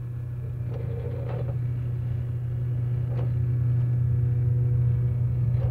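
Steady low machinery drone at an even pitch, with a few faint light clicks over it.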